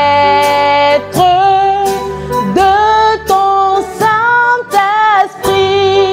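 A woman singing a slow French hymn in long held notes, accompanied by an electronic keyboard.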